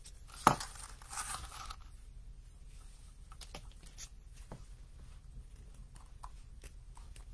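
Crafting sounds at a table: a sharp knock about half a second in, a short rustle of ribbon and packing, then scattered light clicks as scissors snip a satin ribbon.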